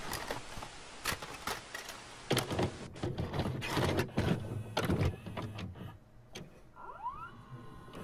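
Sound effect of a VHS video recorder: tape hiss and static, then a run of sharp clicks and clunks from the deck mechanism, with a short rising whine about seven seconds in.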